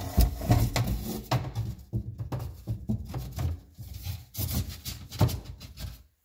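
Laminate flooring plank rubbing and knocking against wood as it is slid in and worked into its tongue-and-groove joint. It makes a run of irregular wooden knocks and scrapes that stop abruptly near the end.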